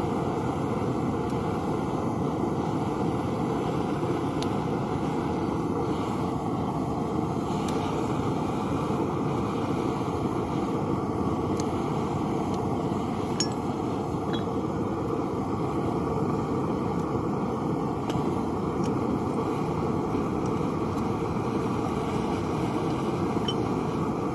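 Propane burner of a Devil Forge melting furnace running with a steady rushing noise, with a few faint metallic clinks.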